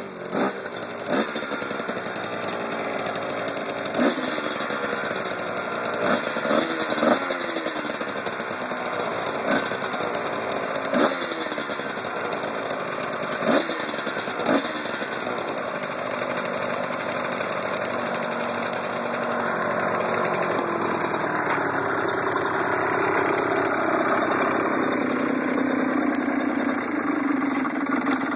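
Suzuki RGV250's two-stroke V-twin running just after a cold start. It is revved in short blips every second or two during the first half, then idles more steadily.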